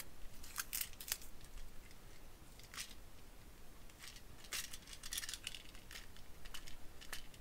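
Faint, irregular clicks and light rustling of small plastic toy parts being handled: the removable garbage load of a TrackMaster Whiff engine is lifted out and set down.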